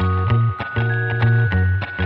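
Background music: an instrumental passage with a steady beat and deep bass notes.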